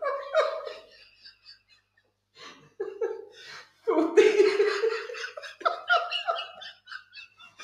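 Men laughing in repeated bursts, with a brief lull about a second in.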